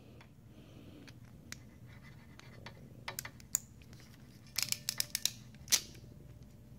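An RJ45 plug being fitted into a modular crimping tool's die and crimped onto a Cat 5e cable: scattered light plastic clicks, then a quick run of clicks about two-thirds of the way through and one sharper click as the crimp closes.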